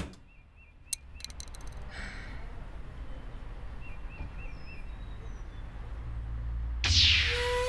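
Quiet outdoor ambience: a steady low rumble that slowly grows louder, with a few clicks early and two short runs of high chirps. Near the end a sudden swish, then a wavering electronic tone begins gliding upward as music comes in.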